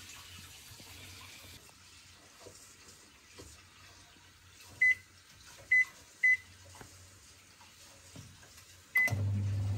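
Microwave oven being set: three short keypad beeps, then a fourth beep about nine seconds in, followed straight away by the steady hum of the oven starting to run.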